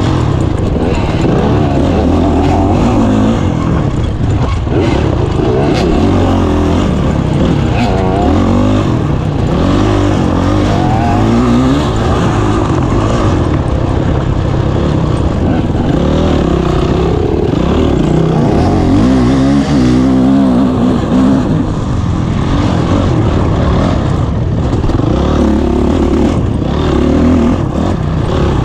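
Honda CRF450 single-cylinder four-stroke dirt bike engine racing hard, its pitch rising and falling every second or two as the throttle is opened and closed and the gears change.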